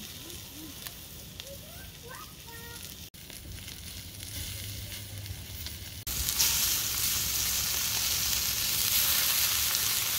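Beef steak sizzling as it fries, a steady hiss that jumps abruptly much louder about six seconds in.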